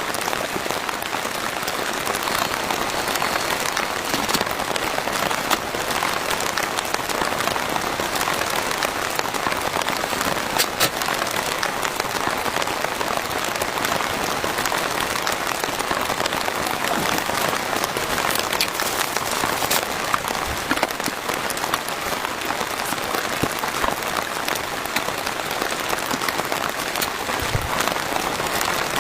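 Heavy rain falling steadily, a dense even hiss with individual drop hits standing out now and then.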